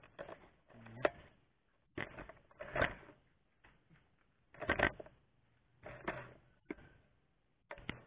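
Handling noise: a string of knocks, clatters and short scraping rustles, roughly a second apart, as the handheld camera is moved about.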